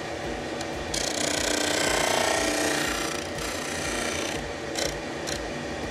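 Disc sander running, with a wooden board pressed against the spinning sanding disc to round off its corner up to a pencil line. The sanding noise swells from about one to three seconds in, then eases as the pressure lets off, over the steady hum of the motor.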